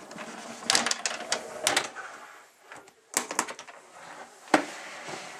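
Plastic snake tubs being slid in and out of a white reptile rack: bouts of scraping and clattering plastic, with one sharp knock about four and a half seconds in.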